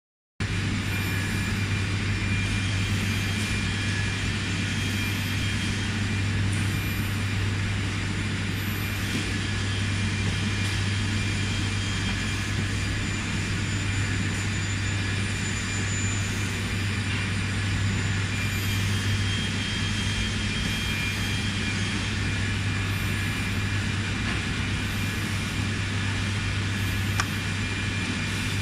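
Steady drone of factory machinery, a low hum under a constant wash of noise that does not change.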